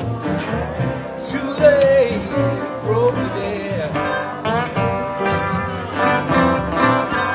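Live blues band playing without vocals: guitars, including a metal-bodied resonator guitar, with a lead line that slides up and down in pitch, over drums and congas.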